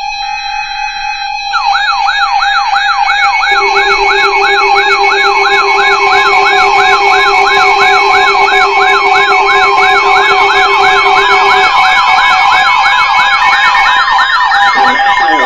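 Electronic alert siren: several steady alarm tones with a rapid warbling sweep layered on top, about three sweeps a second, that starts a second and a half in. A lower steady tone joins for several seconds in the middle.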